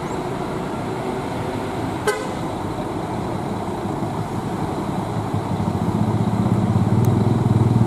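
Bus engines running with traffic hum, one coach's engine rumble growing louder over the last couple of seconds as it moves close. A short horn toot sounds about two seconds in.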